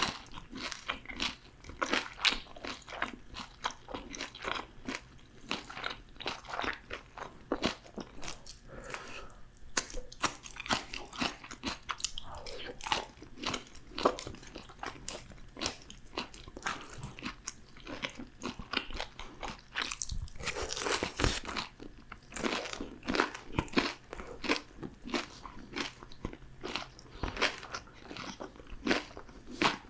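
Close-miked crunching and chewing of crispy fried food: many irregular crunchy bites and chews throughout, with a louder run of crunches about two-thirds of the way through.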